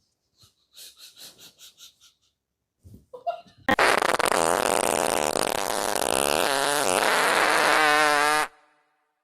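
A long, loud fart sound of about five seconds, starting a few seconds in, its pitch wobbling and breaking up near the end before it cuts off suddenly. Before it comes a quick run of faint short ticks.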